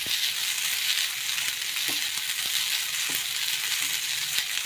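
Washed flattened rice (aval) and grated coconut sizzling with a steady hiss as they roast in a pan, with a few light knocks as they are stirred.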